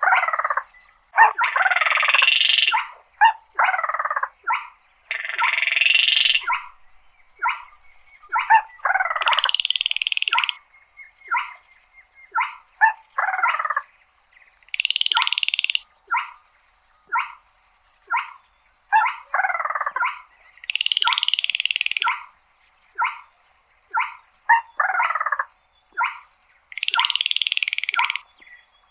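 Baillon's crake calling. Quick runs of short dry notes alternate with longer rattling trills of about a second and a half, which come about six times.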